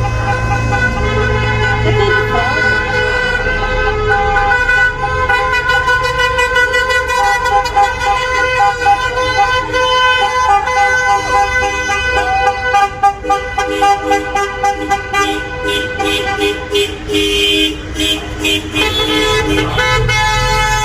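Many car horns honking at once, several steady tones of different pitches overlapping, some held and some breaking off and coming back in.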